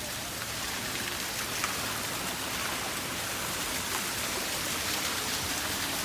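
Small waterfall splashing: a steady hiss of falling water.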